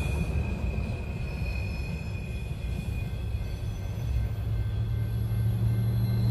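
CSX coal hopper cars rolling past a railroad grade crossing, their rumble on the rails fading as the end of the train clears, while steady high ringing tones, likely the crossing's warning bell, carry on throughout. Near the end a low hum rises as a car approaches the crossing.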